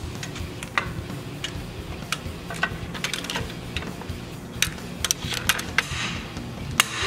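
Irregular sharp metallic knocks and taps on a cam bearing removal tool with an extension, driving the last cam bearing out of a 1948 Chevy engine block. The strikes come unevenly, with the loudest and most ringing ones in the second half.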